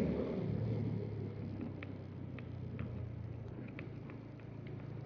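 Motorcycle engine running steadily at low revs with road rumble, easing down over the first couple of seconds, with a few faint light ticks.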